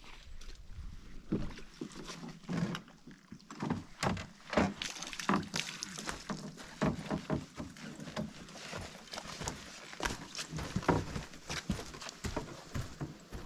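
A person breathing hard, with irregular footfalls and knocks, while carrying a canoe and pack up a steep portage trail.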